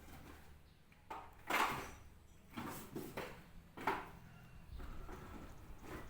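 A run of handling noises, about five clunks and scrapes spread over a few seconds, the loudest a second and a half in: parts and tools being moved and set down at a workbench. No saw motor is running.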